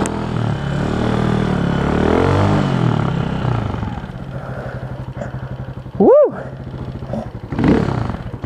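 Dirt bike engine revving up and easing off twice while being ridden, then dropping to a steadier low running about four seconds in.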